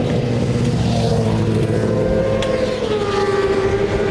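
Racing motorcycle engine running at a steady speed, its pitch dipping slightly about three seconds in.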